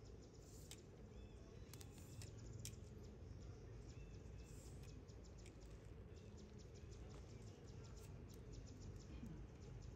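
Near silence: faint outdoor ambience with a low rumble, a few soft chirps in the first half and a run of light ticks in the second half.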